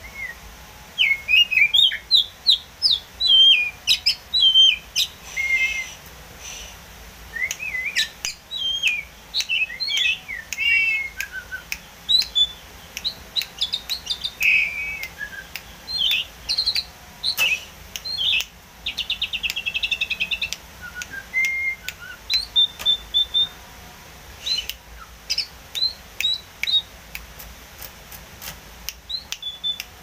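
Oriental magpie-robin singing a varied song of clear whistled phrases, with rising and falling notes, repeated notes and quick trills, in bursts separated by short pauses.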